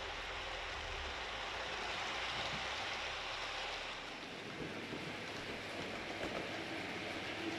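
H0 model train running along the track: a steady rushing rattle of the motor and wheels on the rails.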